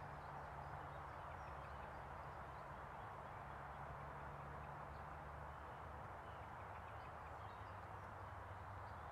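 Outdoor ambience: a steady, even rush of background noise with a low hum under it, and faint, scattered chirps of small birds.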